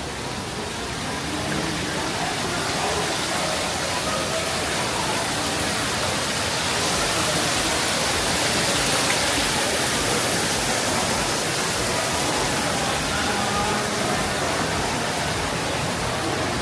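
Steady rush of falling water, as from a fountain or small waterfall, growing louder towards the middle and easing off again, with faint voices underneath.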